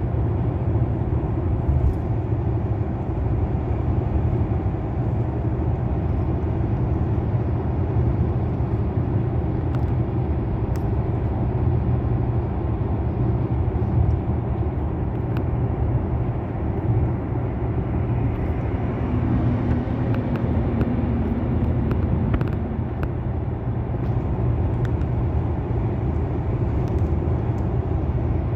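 Car driving steadily, heard from inside the cabin: a continuous low rumble of tyre and engine noise.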